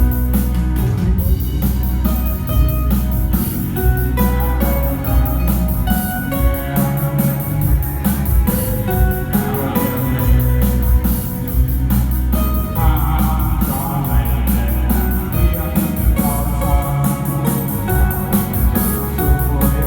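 Music with a steady drum beat, heavy bass and guitar or keyboard notes.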